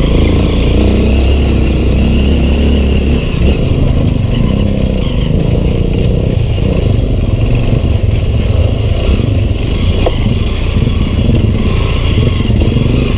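Honda CRF150L's single-cylinder four-stroke engine running steadily as the dirt bike rides over a rutted dirt trail.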